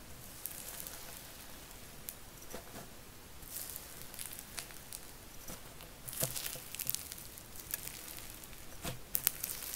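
Fingers poking and stretching a crunchy, granular snowflake slime in a plastic tub: a soft, steady crackle with sharper pops and clicks about six seconds in and again near nine seconds.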